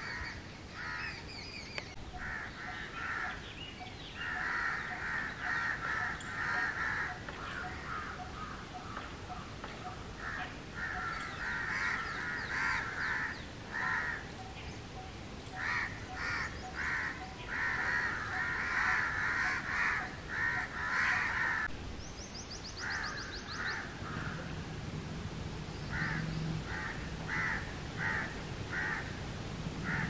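House crow cawing over and over: harsh caws in runs, some packed close together and some spaced apart.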